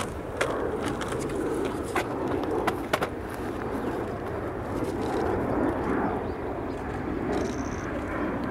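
Kawasaki C-1 military transport jet flying past, its two JT8D turbofan engines making a steady jet rumble. A few sharp clicks come in the first three seconds.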